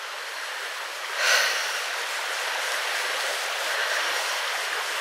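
Shallow stream flowing over stones, a steady rushing hiss, with a brief louder burst of noise about a second in.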